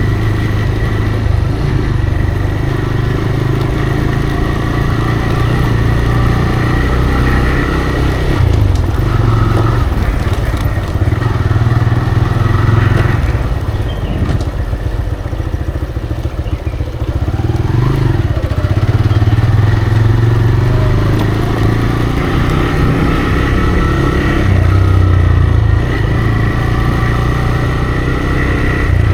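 TVS Raider 125's single-cylinder engine running through its stock exhaust under way, steady, with the engine note easing off around the middle and picking up again after.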